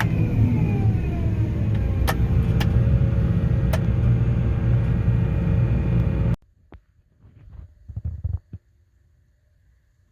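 Heavy farm machine engine running with a steady rumble and a whine that falls in pitch early on, plus a few sharp clicks. The sound cuts off abruptly about six seconds in, leaving near silence broken by a few faint knocks.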